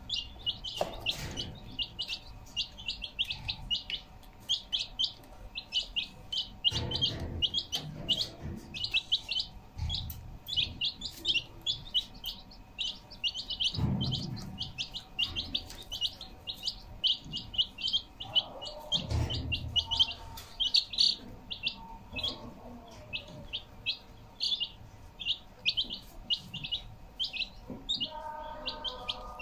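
Baby chicks peeping continuously, many short high chirps in quick succession. A few soft low thumps come through now and then.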